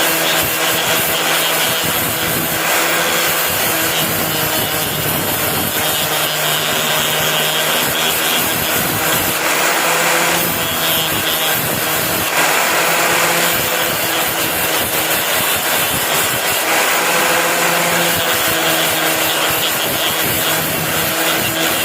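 Electric abrasive power tool running steadily with a motor hum, grinding metal. A rougher rasping noise swells and eases several times as the metal is pressed against it.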